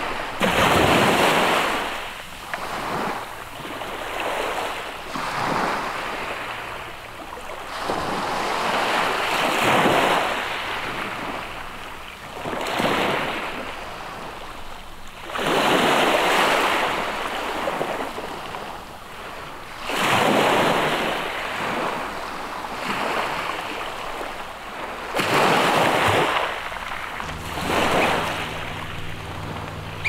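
Sea waves washing against a rocky shoreline, swelling and falling back every few seconds. A low steady hum comes in near the end.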